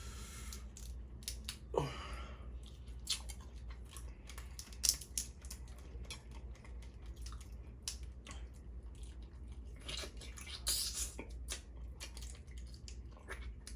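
Dungeness crab shell being cracked and picked apart by hand, with scattered sharp cracks and snaps, along with close-up chewing.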